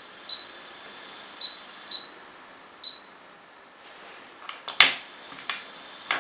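Bora induction cooktop's touch controls beeping about five times as it is switched on and set, with a high-pitched whine from the induction zone under a stainless steel frying pan. The whine stops after about two seconds and comes back almost five seconds in with a sharp click, followed by a few lighter clicks and taps.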